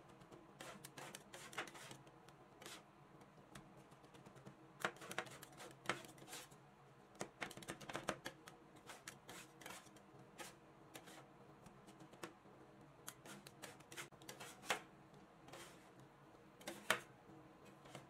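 Two metal spatulas chopping and scraping ice cream mixture on the frozen metal plate of a rolled-ice-cream cold pan: irregular clicks and scrapes, with a few sharper taps of the blades on the plate.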